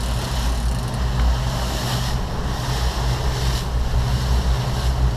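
Boat's outboard engine running steadily at low speed, a low even rumble, with wind buffeting the microphone and sea water noise over it.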